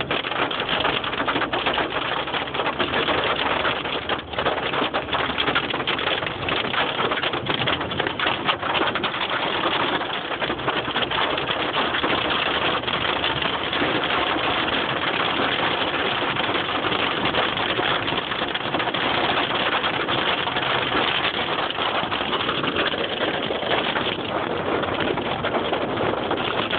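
Hail and rain pelting down in a steady, dense patter of many small impacts.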